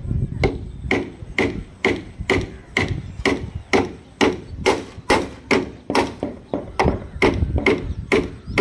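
Hammer blows on steel concrete-formwork plates, about two a second, each a sharp knock with a short metallic ring: a fitting is being driven in hard so it locks in place.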